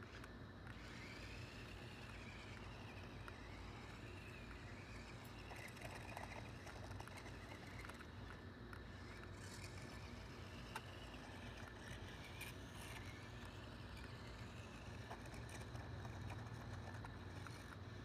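Faint whine of a small toy remote-control car's electric motor, rising and falling in pitch as it speeds up and slows, over a low steady hum.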